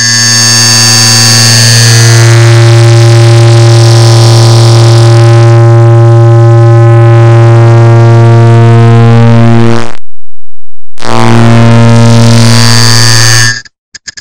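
A clock tick digitally sped up so far that the ticks merge into one very loud, distorted low buzzing tone. It drops out for about a second roughly ten seconds in, comes back, and cuts off suddenly just before the end.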